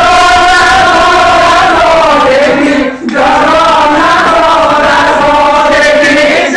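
Group of men singing a traditional folk chant together, in long held notes, with a brief break about three seconds in.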